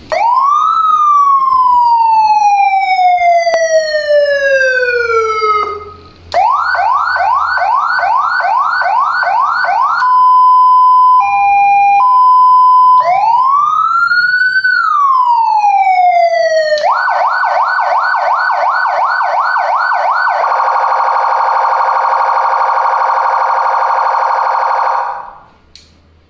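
A 100-watt electronic siren drives an LS-100 horn speaker through its tones. First a slow wail rises and falls, then a fast yelp sweeps about three times a second, then a two-tone alternates between two steady pitches. The wail and the yelp come again, and it ends with a rapid warble that cuts off a second or so before the end.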